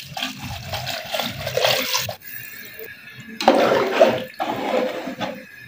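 Water poured from a metal bowl into a large aluminium pot of fried chicken and vegetables, splashing for about two seconds. After a short lull comes a second, louder spell of sloshing as a ladle stirs the liquid in the pot.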